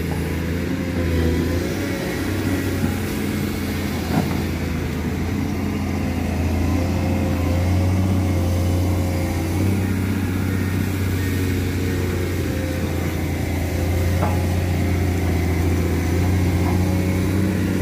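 Komatsu PC210 excavator's diesel engine running steadily, a low hum with a higher wavering whine over it. Two short clacks stand out, about four seconds in and again near fourteen seconds.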